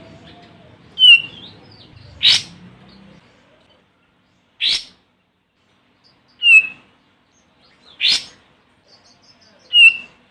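Olive-winged bulbul calling: six short, loud notes spaced a second or two apart, clear chirps alternating with brief harsh notes. A faint low hum underlies the first few seconds.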